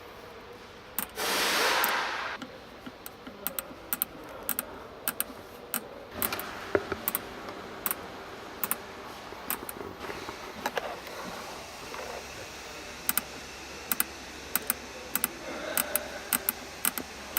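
Irregular sharp clicks, a few each second, with one louder scraping rub lasting about a second near the start.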